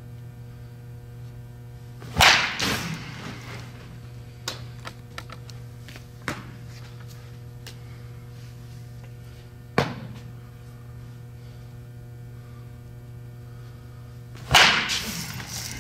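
Baseball bat hitting a ball off a batting tee twice, about twelve seconds apart: a sharp crack each time with a short echoing tail. A few lighter knocks fall between the hits, and a steady electrical hum runs underneath.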